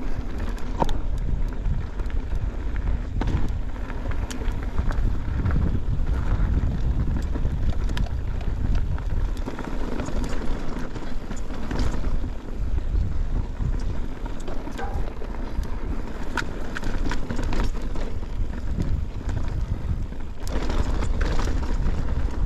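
Mountain bike being ridden along a dirt trail: tyres rolling and the bike rattling, with sharp clicks and knocks scattered throughout, over a steady rumble of wind on the action camera's microphone.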